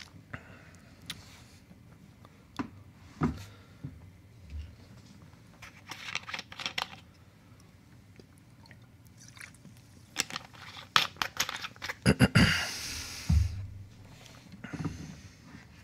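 Plastic soda bottle being handled and drunk from at a desk: scattered clicks and small knocks, two short hisses, and a low thump near the end.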